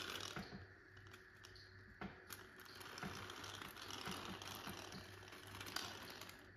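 Razor blades drawn along glazed tiles, scraping off excess epoxy grout: a faint scraping with light, scattered clicks.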